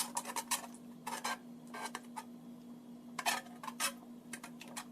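Tableware clicking and tapping lightly in a scattered, irregular series of short clicks, over a faint steady hum.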